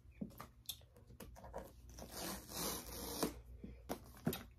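Long fingernails picking and scratching at the seal of a cardboard iPad box, trying to get it off: scattered sharp clicks and short scratchy tearing rasps, the longest a little past halfway.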